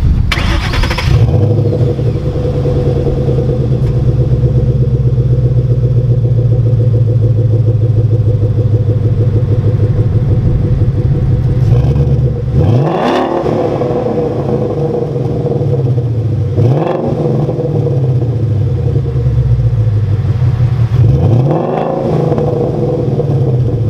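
Ford Mustang GT's 5.0 Coyote V8 starting up: it catches with a flare in the first second, settles into a steady idle, then is revved three times, each blip rising and falling back to idle. The exhaust note is heard close behind the tailpipes, with the stock resonators still in.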